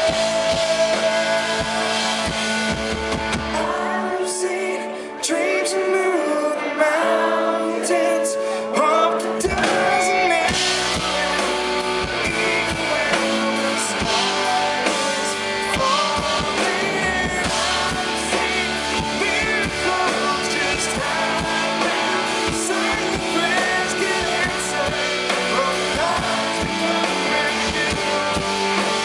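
Rock band playing live through a big PA: electric guitars, bass guitar and drum kit. About four seconds in, the bass and drums drop away for a few seconds, leaving guitar lines on their own, and the full band comes back in near ten seconds.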